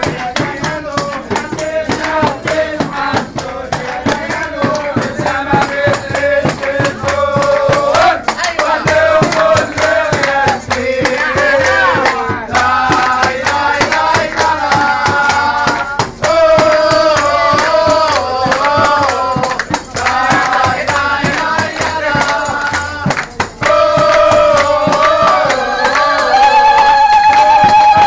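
A group of men singing a folk song together, backed by fast, steady hand-clapping and percussion.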